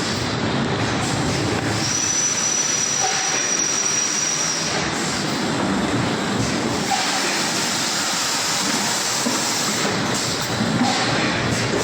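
Automatic PET blow moulding machine running: a loud, steady din of machinery and compressed-air hiss. A short tone recurs about every four seconds, and a high steady whistle sounds from about two seconds in for about three seconds.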